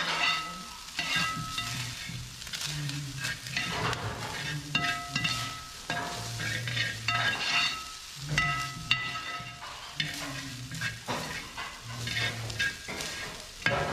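A long metal slotted spoon stirring and scraping rice and peas around a large stainless steel pan on the heat, with a frying sizzle. The scrapes come in repeated strokes every second or two.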